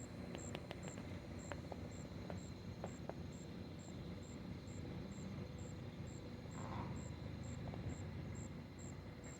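A night insect chirping high and evenly, about twice a second, over a low distant rumble. A few sharp clicks come in the first few seconds.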